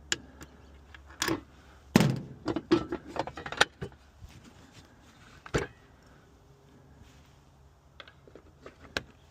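Scattered clicks, knocks and metallic rattles of hands working on a gas pack furnace's panel and controls, busiest about two to three and a half seconds in, with one sharp knock a little later.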